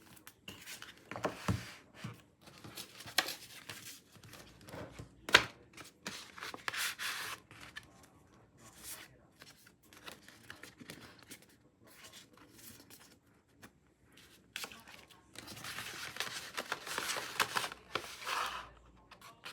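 Album packaging being handled and unwrapped: wrapping crinkling and tearing, with scattered clicks, a sharp knock about five seconds in, and a longer stretch of rustling near the end.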